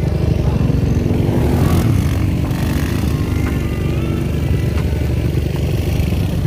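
ATV engine running loud and steady, with a pitched engine tone in the middle.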